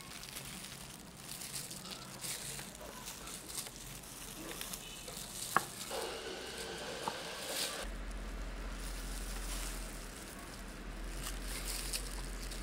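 Knife working on a wooden cutting board and cut strawberries being scraped off the blade into a glass bowl: scraping and rustling with a few short clicks, the sharpest about five and a half seconds in.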